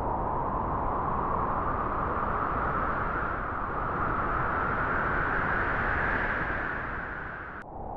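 Wind blowing through grass: a steady rushing noise that slowly swells and eases, with a low rumble of wind on the microphone. Near the end the hiss thins abruptly.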